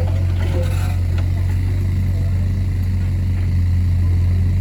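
Excavator's diesel engine running steadily with an even low drone.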